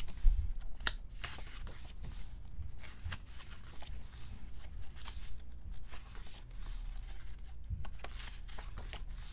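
Pages of a photobook being turned by hand: repeated soft paper rustles with light taps and ticks.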